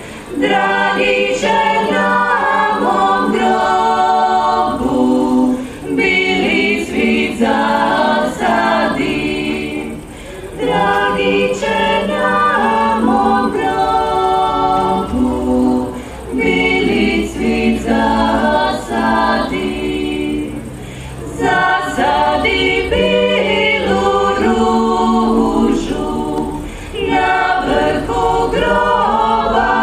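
Women's klapa ensemble singing a cappella in traditional Dalmatian multipart harmony, several voices held together in long phrases broken by short breaths.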